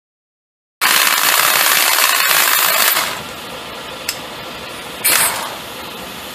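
Impact wrench hammering on the forcing screw of a bearing puller, trying to pull the carrier bearing off a differential carrier; the bearing does not come free. It starts suddenly about a second in, is loudest for the first two seconds, then runs on quieter with a short loud burst near the end.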